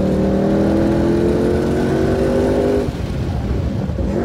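2020 Ford Shelby GT500's supercharged 5.2-litre V8 heard from inside the cabin, pulling hard with its pitch slowly rising. About three seconds in, the engine note drops away.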